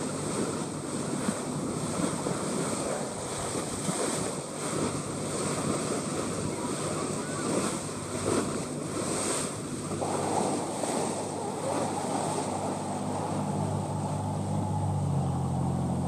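A boat under way: steady engine hum under the rush of water along the hull, with wind buffeting the microphone. The engine hum grows louder over the last few seconds.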